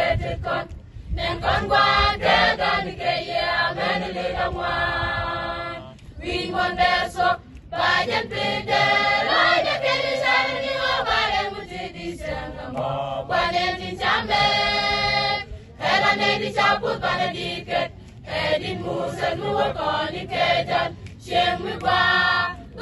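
A mixed choir of men's and women's voices singing a church song, in phrases broken by brief pauses.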